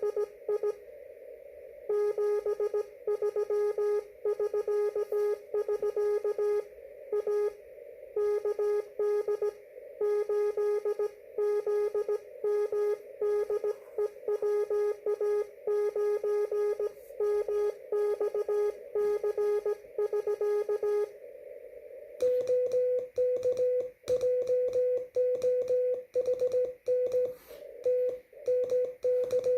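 Amateur radio Morse code (CW), a steady tone keyed on and off in slow dits and dahs over receiver hiss. About two-thirds of the way through, a second, slightly higher-pitched tone takes over with quicker keying and more background noise: the other station answering in the two-way contact.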